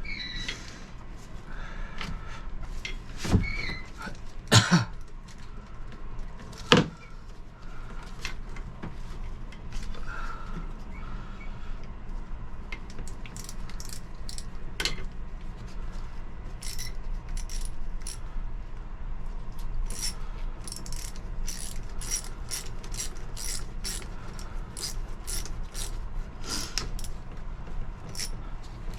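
Metal hand tools clinking and knocking against engine fittings during hose work. A few louder knocks come in the first several seconds, then from about halfway there is a long run of quick, light metallic clicks, over a steady low hum.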